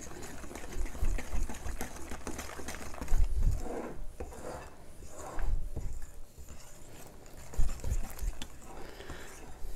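Pumpkin muffin batter being stirred by hand in a mixing bowl: uneven scraping and rubbing with irregular dull thumps.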